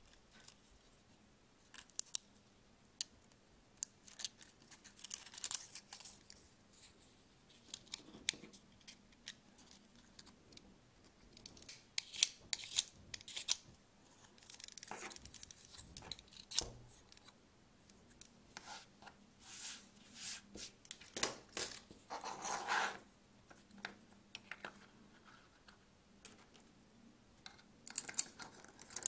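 Brim being trimmed and peeled off a 3D-printed plastic part with a snap-off utility knife: irregular scrapes, small snaps and clicks of thin plastic.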